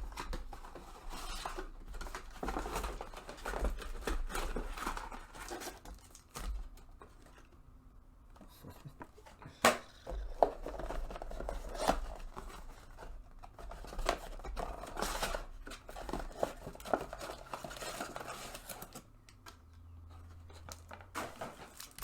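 Plastic wrapping and cardboard packaging of a trading card box being torn open and handled, irregular rustling, tearing and crinkling, with two sharp snaps about ten seconds in.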